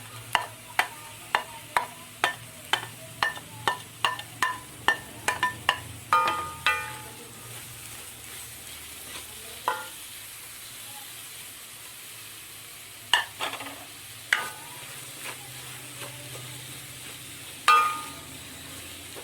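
Sliced onions sautéing in hot coconut oil with a ginger-garlic-chilli paste, sizzling faintly, as a spoon stirs them and strikes the pan. The strikes are sharp ringing clinks, about two a second for the first six seconds, then a few single ones later.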